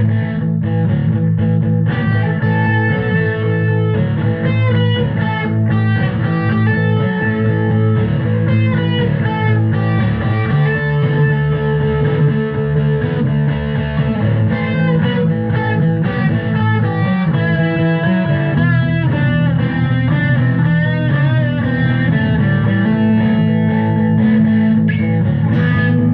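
Background music led by guitar, steady and loud, with a rock feel.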